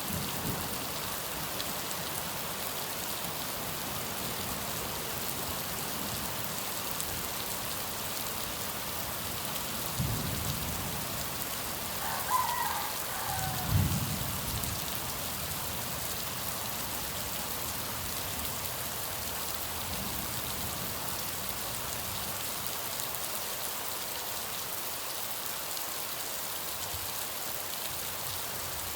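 Steady rain falling, an even hiss throughout. Two short low thuds come about ten and fourteen seconds in, with a brief pitched sound between them.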